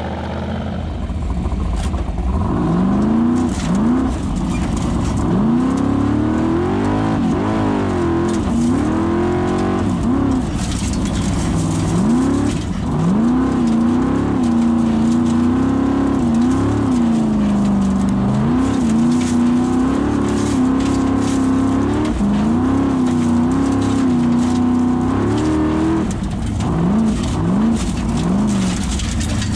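Formula Offroad buggy's engine revving hard and unevenly, its pitch climbing and dropping again and again as the throttle is worked on a steep sandy hill climb. It is heard from inside the open cockpit.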